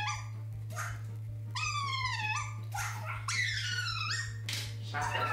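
Dog-like whimpering: a run of high, whining cries, each under a second long and sliding downward in pitch, over a steady low hum.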